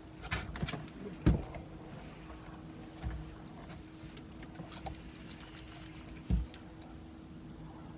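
Metal clicks and jingly rattles with three dull thumps, the first about a second in and the loudest, from gear being handled in a fishing boat, over a steady faint hum.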